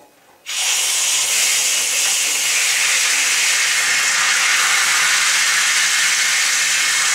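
Water heater drain valve opened with the tank still under water pressure: water jets out with a sudden, loud, steady hiss starting about half a second in.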